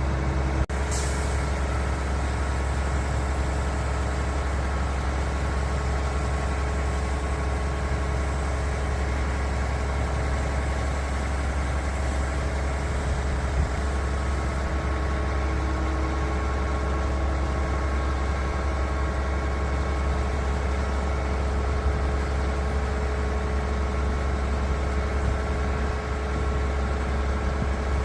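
Concrete pump truck's diesel engine running steadily, with a short click and hiss about a second in.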